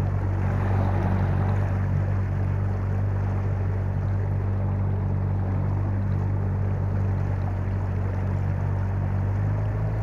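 Small boat's outboard motor running at a steady speed, a low steady hum with water noise over it; the motor's pitch shifts slightly near the end.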